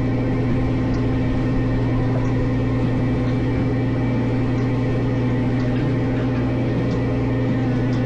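Crab fishing boat's engine running steadily underway, a constant low drone that holds even throughout, with a few faint clicks on top.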